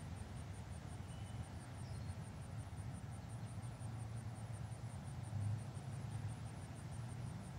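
Outdoor ambience: a steady low rumble under an insect chirping high and fast in an even pulse, about five a second, with a couple of faint bird chirps early on.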